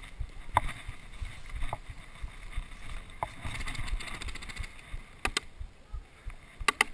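Paintball markers firing: a few single sharp pops, then two quick pairs of shots near the end. Under them is a low rumble of wind on the microphone and rustling in dry grass.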